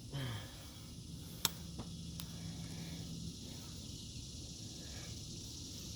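Steady high insect chorus of crickets, with a short low falling sound at the very start and a single sharp click about one and a half seconds in, followed by a couple of fainter clicks.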